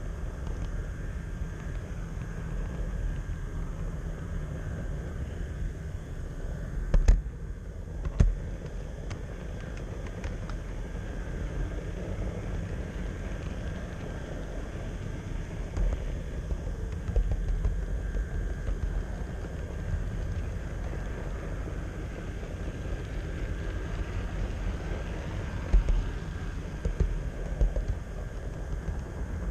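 Steady low rumble of an HO-scale model train rolling along its track, picked up by a camera riding on the train. A few sharp clicks and knocks stand out, the loudest about seven seconds in and another a second later.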